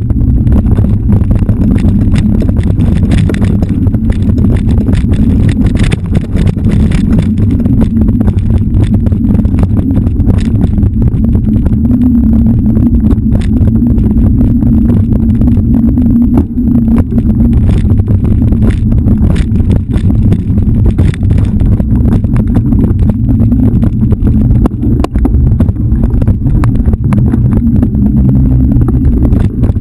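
Continuous loud low rumble of wind buffeting and trail vibration on a GoPro's microphone while riding a dirt singletrack, with scattered sharp clicks and rattles.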